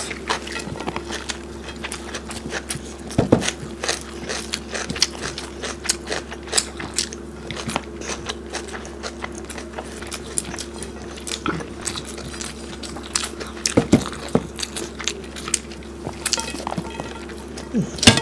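Close-miked eating sounds of people eating rice and curry by hand: chewing, lip smacks and finger-licking, with frequent short clicks from fingers wiping across the plates. A steady low hum runs underneath.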